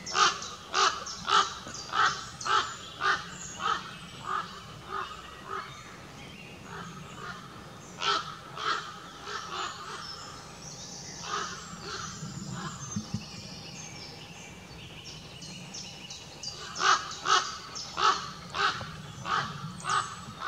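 A group of common ravens calling as they wheel overhead. A rapid run of loud calls, about two a second, fades away over the first few seconds; a few scattered calls follow, then another loud run near the end.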